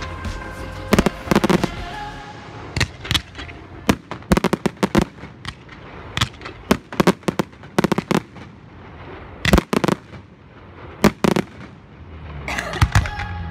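Aerial fireworks bursting: an irregular run of sharp bangs, some coming in quick clusters of two or three, with quieter gaps between.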